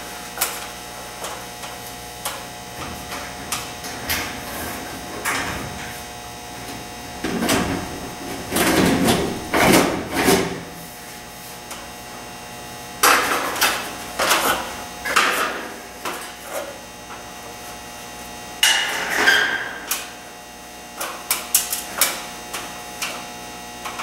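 Sheet-metal front cover panel of an Olson oil furnace being worked loose and lifted off: scattered metallic clicks and knocks, with three louder spells of rattling and scraping of the panel, about eight to ten seconds in, again at thirteen to fifteen, and around nineteen seconds.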